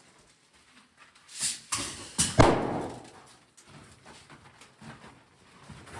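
A quick run of sharp bangs and knocks, the loudest about two and a half seconds in, ringing briefly in a hard-walled room.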